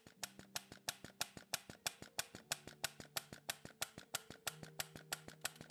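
Mesogun mesotherapy injector gun firing in rapid repeated clicks, about five a second, as it injects PRP into facial skin. Soft background music holds low notes underneath.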